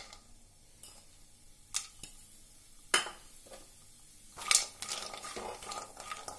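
Lentil dumplings (bori) frying in mustard oil in a non-stick wok: a faint sizzle with a few isolated sharp clicks. From about four and a half seconds in, a spatula stirs them with a run of knocks and scrapes against the pan.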